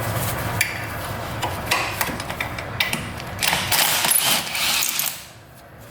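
Ratchet wrench clicking in quick runs while unbolting parts from the engine's top end, louder about three and a half seconds in and dying away near the end.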